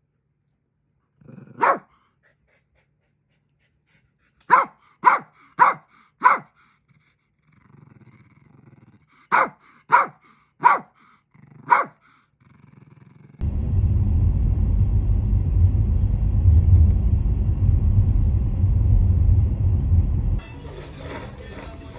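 Toy poodle barking in single sharp yaps: one, then a quick run of four, then another run of four. A loud low rumbling noise follows for about seven seconds and cuts off suddenly.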